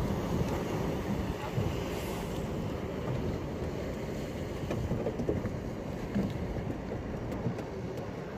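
Steady low rumble of a fishing boat under way, with wind buffeting the microphone.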